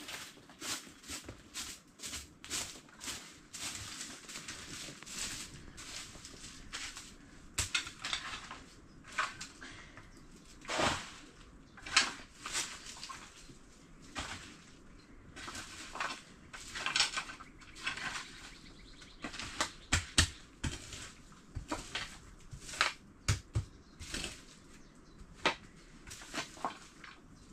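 Straw hand broom sweeping a muddy earth and dung floor: many short, dry swishes at an uneven pace, with a few louder scrapes and knocks as the sweepings are pushed into a dustpan.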